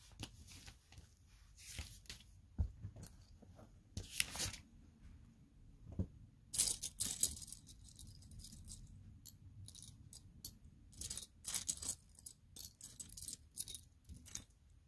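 Loose plastic Lego pieces clicking and clattering against each other as a hand sifts through a pile of them, in irregular bursts of short clicks.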